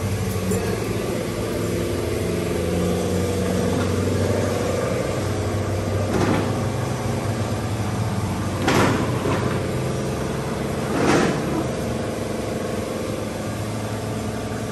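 A steady low mechanical hum, broken by three short hissing bursts about six, nine and eleven seconds in; the last two are the loudest.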